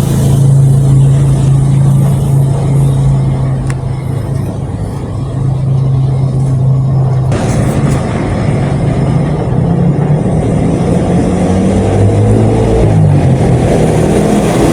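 Motor vehicle engine running with a steady low hum, its pitch shifting up and down in the second half as it revs.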